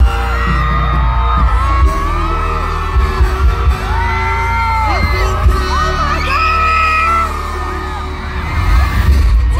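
Pop song with singing played loud over a concert PA during a soundcheck, with heavy booming bass.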